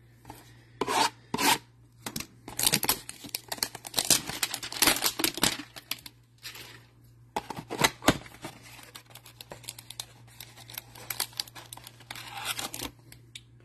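Cardboard trading-card hanger box being torn open and handled: irregular tearing, rubbing and crinkling of card stock, heaviest a couple of seconds in and again briefly near the middle, then lighter scraping.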